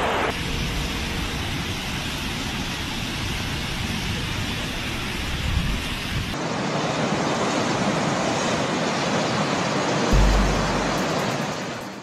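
Fast-flowing floodwater rushing through a street, a dense steady roar whose character changes abruptly twice. A deep rumble comes in near the end before it fades away.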